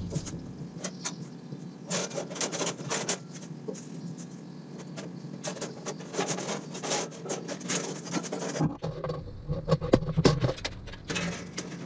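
Irregular metallic clatter, scraping and knocks as a steel bandsaw blade is worked off the wheels and pulled out through the table slot, the loudest rattles about ten seconds in.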